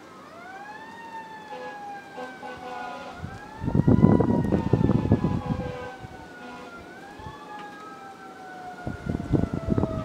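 Fire engine siren wailing, its pitch rising quickly and then sliding slowly down, about three times. Bursts of loud, rough low noise come in about three and a half seconds in and again near the end.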